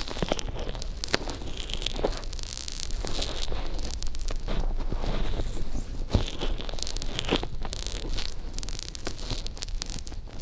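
Fingertips rubbing lotion into the silicone ear of a binaural microphone, right at the mic: close, irregular crackling, squishing and rubbing with many small sharp clicks.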